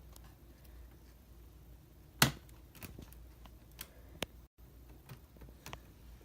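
Scattered light clicks and taps of a laptop and its keys being handled, with one sharp, loud click a little over two seconds in.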